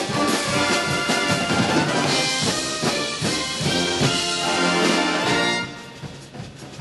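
Marching band music, brass with drums, played at full volume; about five and a half seconds in it falls suddenly to a much quieter passage.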